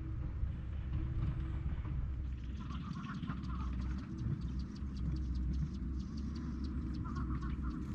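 Outdoor ambience: a steady low rumble with short bird chirps, a few about three seconds in and again near the end.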